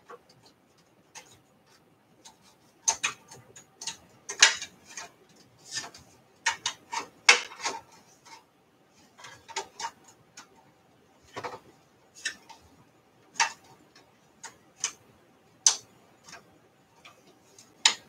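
Irregular clicks and taps of hands hooking up a drive cable to a computer's connectors, the sharpest clicks now and then as a connector is pushed or seated.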